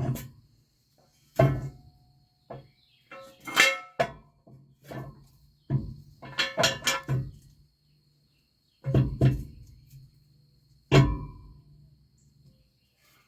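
Irregular metal clanks and knocks, each with a short ringing tail, about a dozen over the stretch: tools and parts being handled at a semi-trailer's drum brake while it is being taken apart.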